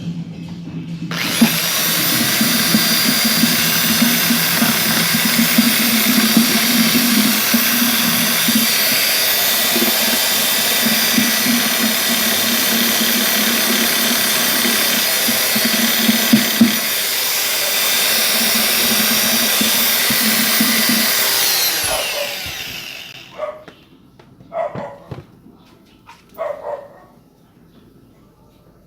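Electric power tool cutting a new hole in the subwoofer's speaker cabinet to fit a second speaker. It starts about a second in, runs steadily for some twenty seconds, then spins down with a falling pitch. A few short separate sounds follow near the end.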